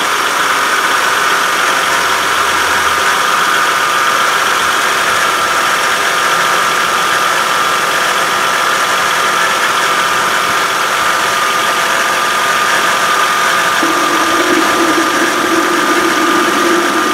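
2013 Kia Sorento 3.5-litre V6 running at idle, with its serpentine belt and pulleys turning and a steady high tone over the engine noise; a lower steady tone joins near the end. The tensioner pulley, probed with a screwdriver on its bolt, sounds quiet, so it is not the source of the pulley noise.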